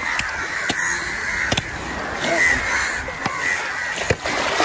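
Crows cawing over and over, several calls overlapping, with scattered sharp knocks.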